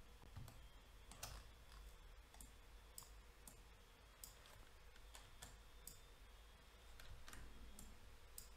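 Near silence with a dozen or so faint, irregularly spaced clicks from a computer mouse and keyboard.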